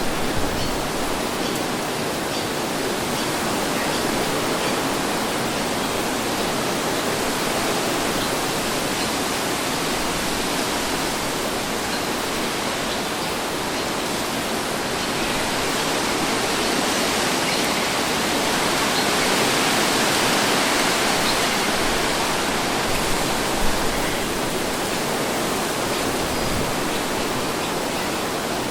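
Steady wind, an even rushing noise that swells a little just past the middle.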